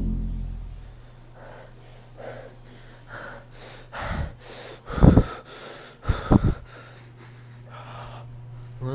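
A person breathing in short, gasping breaths, with two louder bumps about five and six seconds in, over a faint steady low hum. A deep tone left over from just before fades out in the first second.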